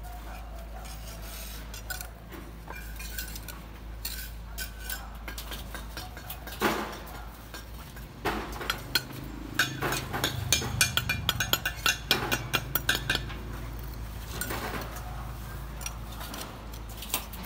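Bricklayer's steel trowel scraping mortar and clinking against bricks as they are laid, with scattered taps and a quick run of taps about halfway through as a brick is knocked into place.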